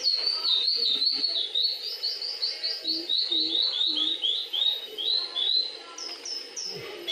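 Birds singing: a fast, unbroken run of repeated high chirping notes, about three or four a second, with three short low calls about three seconds in.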